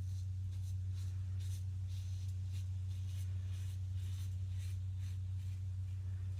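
Single-edge safety razor (Kampfe SE) scraping through lathered stubble in a series of short, faint strokes, over a steady low electrical hum.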